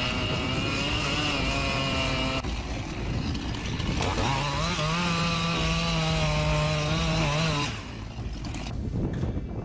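Chainsaw engine running at high revs with a steady note, easing off about two and a half seconds in, then revved up and held steady again before cutting off about eight seconds in. A few sharp knocks follow near the end.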